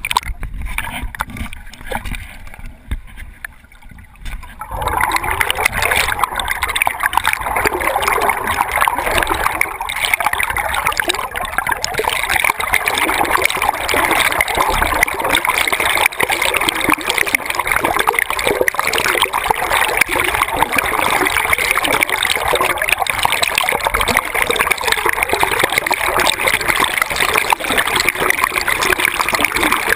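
Fast river water rushing and bubbling over a camera held underwater, heard through its waterproof housing. It is quieter and duller for the first four seconds or so, then turns into a loud, steady rush.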